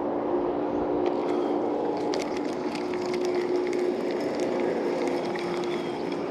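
A boat's motor running with a steady hum, with light clicking and rattling from about two seconds in.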